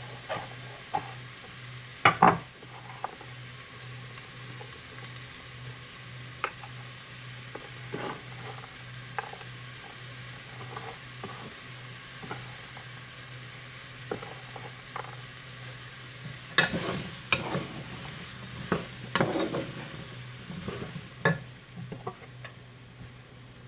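Scattered knocks and scrapes of a chef's knife and hands on a wooden cutting board as chopped leafy greens are cut and gathered into a bowl. There is a sharp knock about two seconds in and a busier run of knocks and scraping about two-thirds of the way through, over a steady low hum and hiss.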